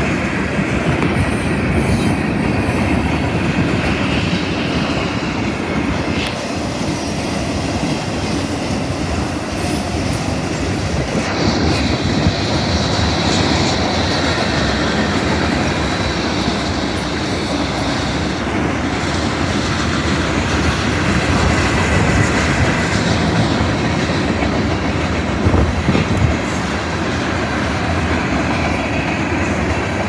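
Freight cars (tank cars, covered hoppers and gondolas) rolling past close by: a steady loud rumble and clatter of steel wheels on the rails. A high wheel squeal sounds for several seconds about a third of the way in, and a couple of louder clanks come through, one near the end.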